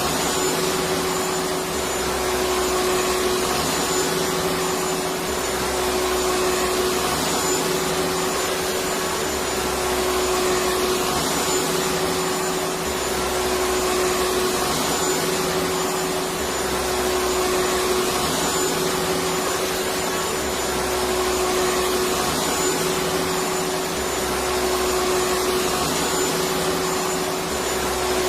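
Electric vacuum cleaner running continuously: an even rushing hiss with a steady motor hum, and a faint low pulse that repeats every two seconds or so.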